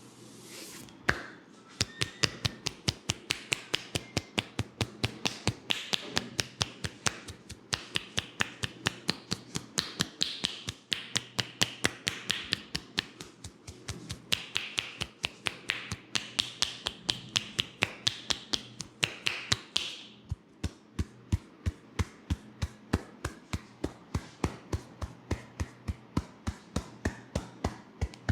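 Hands tapping rhythmically on a person's head in a percussive scalp massage, an even run of sharp taps at roughly three a second. A hissing rustle runs under the taps until about two-thirds of the way through, then the taps go on alone.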